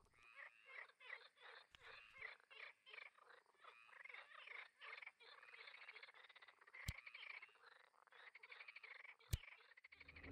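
Faint night chorus of frogs calling in quick, repeated croaks, with two sharp clicks in the second half.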